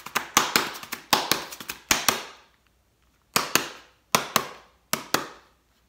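Cardboard shoe box lid slapped by hand as a stand-in tambourine, playing the 'double' rhythm: sharp pops in quick pairs, flicked at the wrist. The pops stop for about a second midway, then start again.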